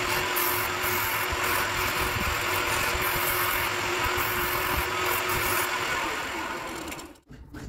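Wood lathe running with sandpaper held against the spinning wooden candle holder: a steady hiss over the motor's hum. The sanding stops and the sound fades away near the end.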